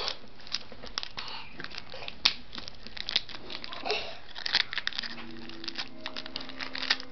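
Foil wrapper and paper towel crinkling and rustling in the fingers as a small jewelry charm is unwrapped, with many quick, sharp crackles.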